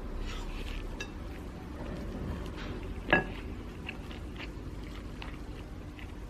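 An eating utensil clinking and scraping on a plate during a meal, with one sharp ringing clink about three seconds in and lighter taps around it.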